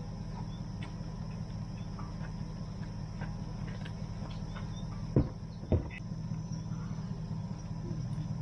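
Steady low drone of a vehicle engine and road noise, broken a little past halfway by two sharp knocks about half a second apart.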